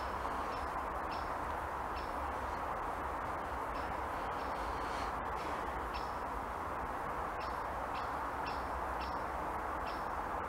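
Steady outdoor background noise with short, high bird chirps repeating at irregular intervals, sometimes two or three close together.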